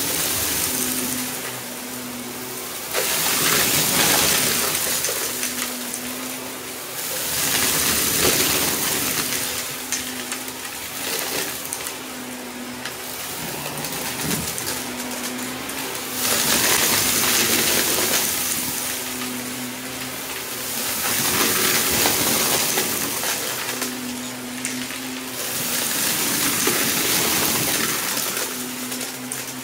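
Shark upright vacuum cleaner running on carpet and sucking up crushed plastic debris. The motor hums steadily while the loose pieces rattle and clatter up through the machine in repeated surges as the head is pushed into the pile.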